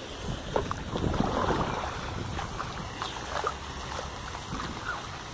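Wind buffeting the phone's microphone, a steady low rumble, with a few faint short ticks.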